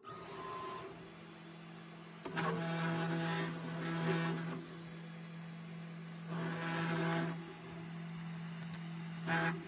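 A CNC router starting a job. About two seconds in there is a click, then its spindle hums steadily, while the stepper motors whir in short stretches as the gantry carries the engraving V-bit to the brass plate.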